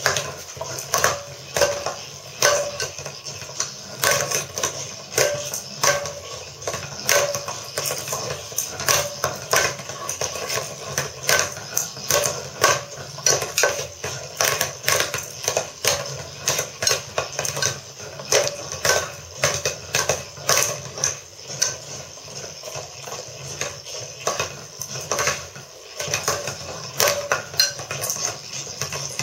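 Wriggling motorised tail-ball toy thrashing inside a ceramic donabe pot, its ball and body knocking and rattling against the pot's walls several times a second in an irregular clatter, over a steady hum.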